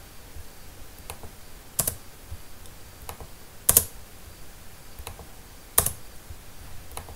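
Computer keyboard keys pressed one at a time: three louder clacks about two seconds apart, each with a fainter click a little before it.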